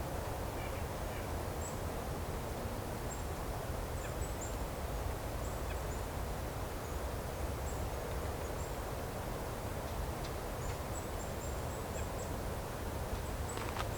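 Small birds giving very high, thin, short call notes, scattered irregularly over a steady background hiss of outdoor noise.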